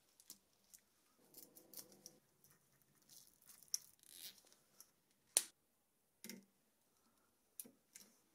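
Faint handling noises of woven nylon braided cable sleeving and plastic cable ties being worked around wiring: soft rustling with scattered sharp clicks, the sharpest about halfway through and several more near the end.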